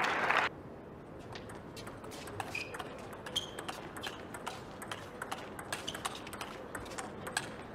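Applause cuts off about half a second in. Then comes a table tennis rally: the celluloid ball clicks off rubber-faced paddles and bounces on the table in an irregular run of sharp ticks, with a couple of short squeaks.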